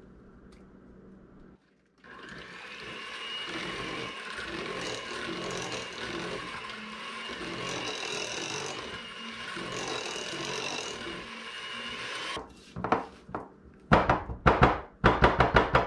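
Electric hand mixer running steadily with a motor whine for about ten seconds, beating eggs into creamed butter and sugar, then switched off. Then a spatula scrapes and knocks against the mixing bowl in a quick series of loud strokes.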